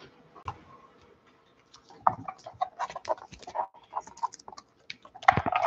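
Trading cards and a foil card pack being handled: scattered light clicks and rustles, with louder crinkling near the end.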